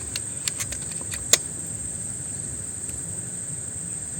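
A steady high-pitched whine with a faint low rumble under it. A few light clicks come in the first second or so, then one sharp, louder click about a second and a half in.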